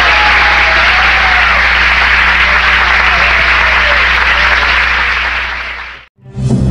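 Audience applause, dense and steady, fading out about six seconds in. After a brief silence, music with held tones starts right at the end.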